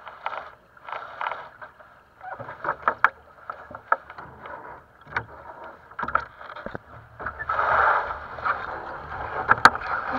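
Water rushing and slapping against the hull of a small sailing dinghy, in uneven swells, with scattered sharp clicks and knocks from the boat's fittings and rigging as the crew move about on board.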